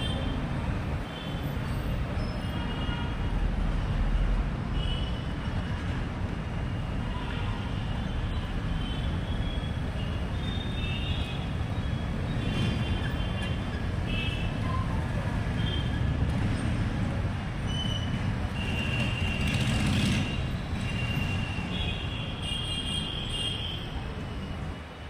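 Busy city road traffic: a steady rumble of passing vehicles, with many short high-pitched tones scattered throughout, most of them in the last few seconds.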